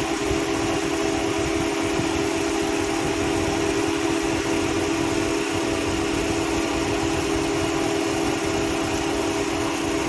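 Saturn L-series engine idling with its electric radiator cooling fan running steadily, a continuous hum and rush of air. The fan running shows the fan itself works, which the owner takes as a sign of a faulty coolant temperature sensor.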